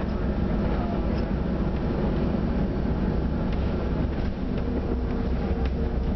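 Cabin noise of a 2008 Scania OmniCity diesel bus on the move: a steady low engine and road rumble with light rattles and knocks from the fittings. A steady whine comes in about four and a half seconds in.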